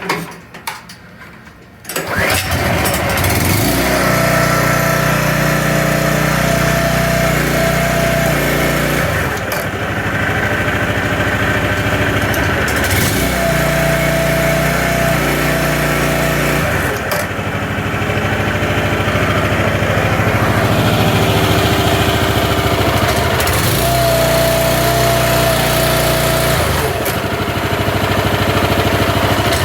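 Kohler small gasoline engine on a log splitter starting about two seconds in, then running steadily, its note changing every few seconds.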